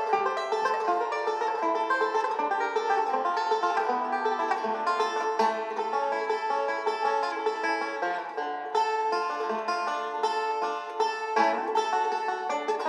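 Banjo music: a quick, steady stream of plucked notes.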